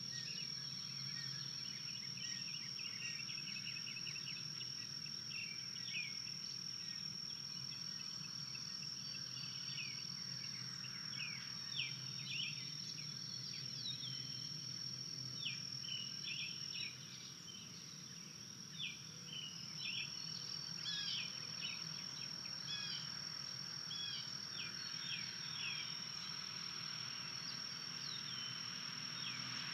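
Outdoor evening ambience: a steady high-pitched insect trill with many short, scattered bird chirps over it.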